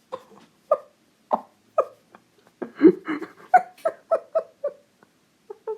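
A person's voice whimpering in short, pitched, sob-like cries for a despairing character. They come about half a second apart, then in a quicker run of about four a second past the middle.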